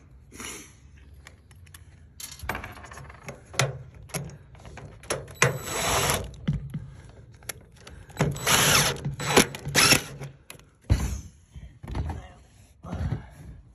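DeWalt 20V cordless impact driver driving screws into a plastic downspout bracket, running in several short bursts with pauses between them.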